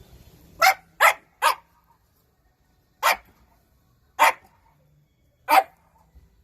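Shiba Inu barking: six short, sharp barks, a quick run of three followed by three more spaced a second or more apart.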